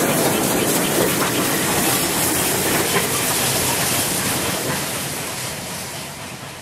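GWR Manor-class steam locomotive 7828 Odney Manor and its train running away into the distance, with a hiss of steam, the sound fading steadily towards the end.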